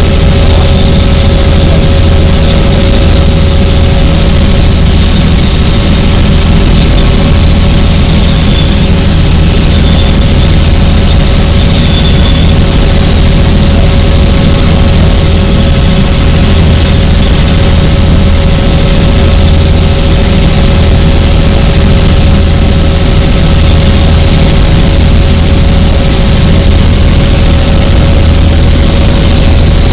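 Helicopter in flight: a steady, loud engine and rotor drone with a deep low hum and a thin high-pitched whine over it.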